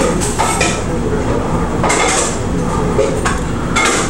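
Eating utensils clinking and scraping against a bowl of jjamppong while it is eaten, a few short clinks over a steady background noise.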